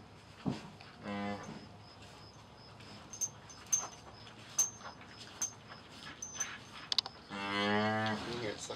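Cattle mooing low twice, a short moo about a second in and a longer, louder one near the end, with soft clicks in between.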